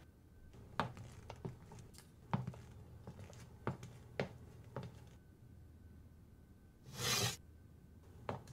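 Light footsteps across a room floor, a string of soft irregular taps, followed about seven seconds in by a brief rustling swish.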